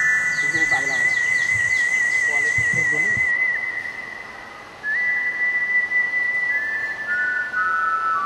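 Background music: a slow melody of long, pure, whistle-like electronic notes that step between a few pitches, one note wavering slightly. Under it, a steady high-pitched buzz cuts off about three seconds in.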